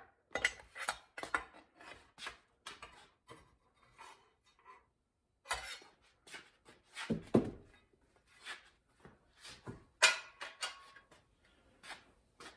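Irregular light metal clinks, taps and knocks as a small sheet-steel repair piece is worked and handled with hand tools, with a duller thud about seven seconds in and a sharper clank near the end.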